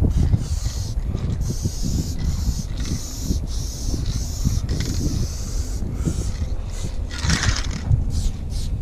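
Aerosol spray paint can hissing in a run of short bursts, about a second each with brief breaks, with a louder, harsher burst about seven seconds in. A steady low rumble runs underneath.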